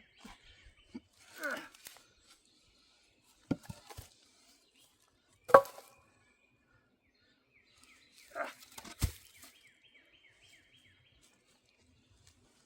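Scattered knocks and thuds of oak rounds being handled, the loudest about halfway through. A bird sings a quick run of falling chirps at the start and again near the end.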